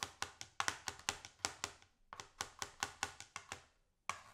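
Chef's knife chopping garlic finely on a plastic chopping board: quick sharp taps of the blade on the board, about six a second, with a brief pause about two seconds in and the chopping stopping shortly before the end.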